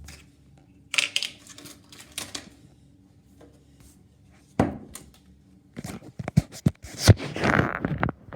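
Handling noise from fitting a tiny plastic helmet onto a miniature action figure: small plastic clicks and taps with short bursts of rustling, busiest in the last couple of seconds.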